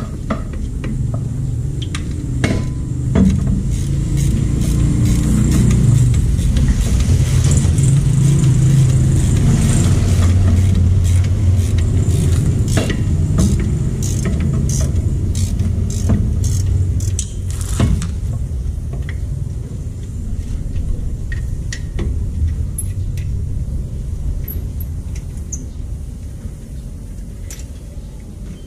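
Low vehicle-engine rumble that swells and then eases off, with scattered sharp metallic clinks of hand tools.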